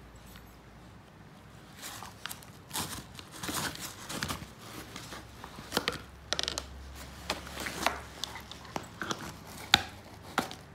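Great Pyrenees puppy chewing and gnawing a blue plastic toy: irregular crunches and sharp clicks that start about two seconds in, the loudest click about a second before the end.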